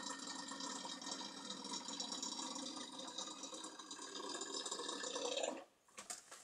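Petrol pouring from a combi canister's spout into a Husqvarna 353 chainsaw's fuel tank, a steady liquid gurgle that grows a little louder, then stops abruptly about five and a half seconds in. A few light knocks follow near the end.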